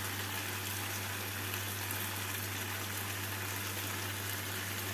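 Chicken and green beans cooking in the pan, a steady, even sizzle with no stirring strokes.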